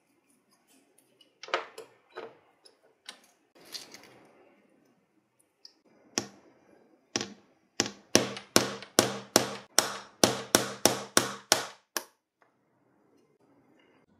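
A hammer taps a thin steel pin punch held against a small threaded steel lighter part on a wooden board: about fifteen sharp metallic strikes, quickening to about three a second, then stopping. Before that come a few scraping, crunching sounds as pliers twist a felt washer off the part.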